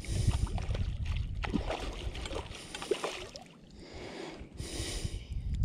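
Water splashing and sloshing at the surface as a hooked fish thrashes close in, in two spells with a short lull just after the halfway point.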